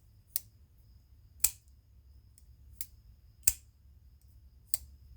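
Jungle Edge JL9393 titanium flipper pocket knife being flicked open and shut: five sharp clicks at uneven intervals as the blade snaps out and back.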